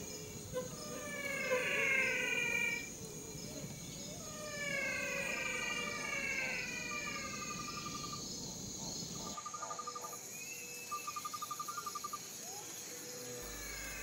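Thorn-forest ambience of insects trilling steadily. Calls that slide down in pitch come near the start and again midway, and two short runs of fast pulsed trills come near the end.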